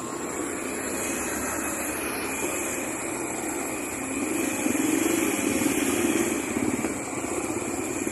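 Motorcycle tricycle engine running as it drives through a flooded street, with the wash of floodwater around the wheels. It gets louder for about two seconds around the middle.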